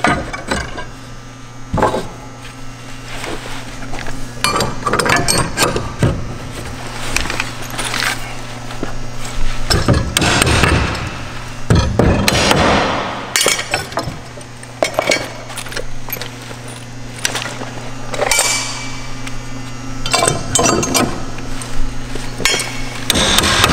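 Steel snap tie wedges (hairpins) being slid onto snap tie extenders and set against a wooden 2x4 strong back on a concrete wall form: a scatter of separate metal clinks and knocks, with handling noise in between.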